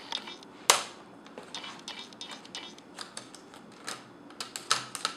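Plastic screen bezel of a Sony VAIO laptop being pried off by hand, its snap clips clicking and popping at irregular moments, with one sharp snap a little under a second in.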